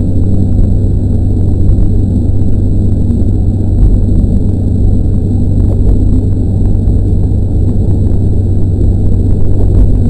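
KiHa 40 diesel railcar running along the line, heard from inside the cab: a loud, steady low engine drone with the rumble of wheels on the rails.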